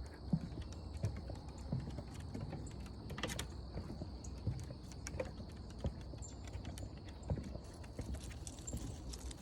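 Footsteps of a person walking at an even pace, a soft thud every half second to second, with a steady high-pitched hum behind them.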